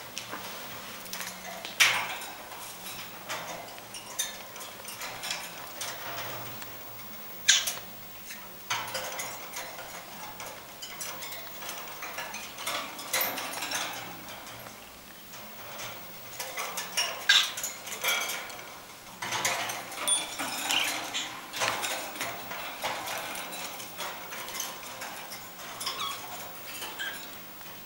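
Two budgerigars chattering softly with short squeaky chirps while they touch beaks, with a few sharp metallic clinks now and then.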